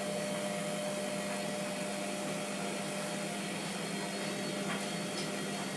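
Hotpoint WMF720P washing machine running with a steady, even hum and whir, holding a load full of suds.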